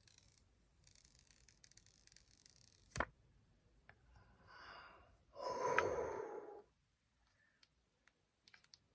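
Quiet rustling of hands handling the phone, a single sharp click about three seconds in, and a louder breathy exhale like a sigh a little past the middle.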